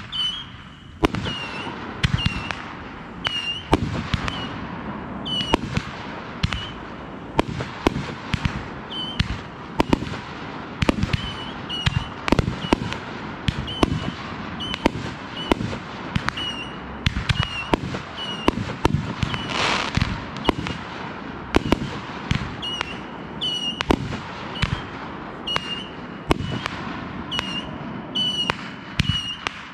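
Fireworks going off in a continuous barrage: a steady run of sharp bangs and booms, a few every second, as shells launch and burst overhead, with a brief rushing hiss about twenty seconds in. Short high chirps recur through it.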